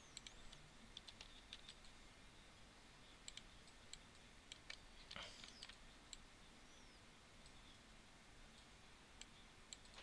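Near silence with faint, scattered clicks of a computer mouse and keyboard keys, irregularly spaced, a dozen or so in all.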